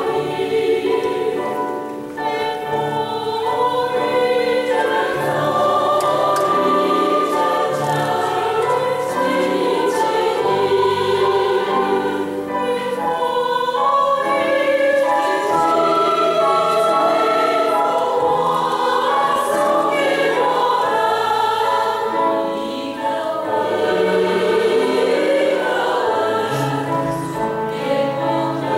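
Women's choir singing a continuous choral piece.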